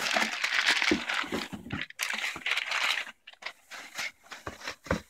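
Thin plastic bag crinkling and rustling as hands pull it open inside a cardboard box. The rustling is thickest in the first three seconds, then gives way to a few short knocks and crackles.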